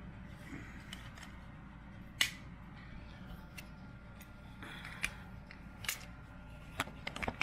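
Scattered light clicks and taps of handling noise. A sharp one comes about two seconds in, a few more are spaced out after it, and a quick run of them falls near the end.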